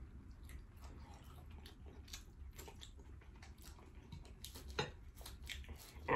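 Faint chewing and biting of food, lettuce-wrapped vegetable fritter, with soft small clicks scattered throughout and one sharper click about five seconds in.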